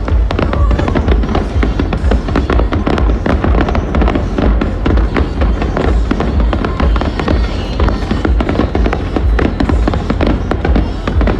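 Fireworks going off in a dense, continuous barrage: rapid bangs and crackles over a steady deep rumble of booms, with music playing.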